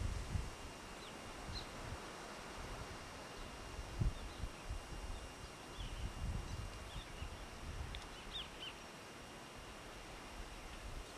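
Quiet open-air ambience with uneven low rumbling on the microphone and a single thump about four seconds in. Short high bird chirps come now and then, several close together near the middle.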